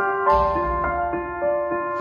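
Background piano music: a slow melody with notes struck about three times a second over sustained chords.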